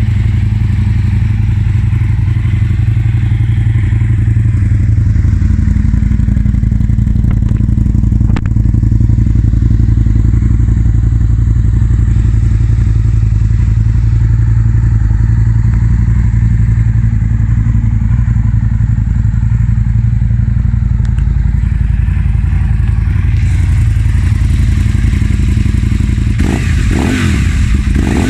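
Aprilia Tuono Factory R's 998cc V-twin idling steadily through aftermarket Pipeworx exhaust cans, loud. Near the end the throttle is blipped twice, the revs rising and falling.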